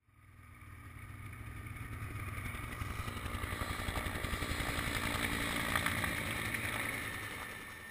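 Helicopter flying low overhead, its rotor beating in a rapid steady pulse over the engine's steady note. The sound fades in over the first couple of seconds and fades out near the end.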